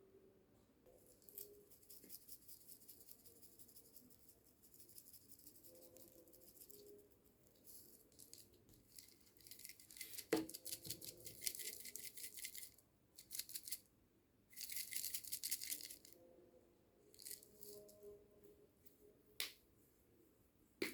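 Crinkling and rattling of food packaging in several bursts, with a sharp click about ten seconds in.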